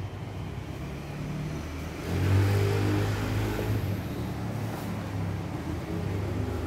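Low, steady engine-like hum that swells louder about two seconds in and eases off again.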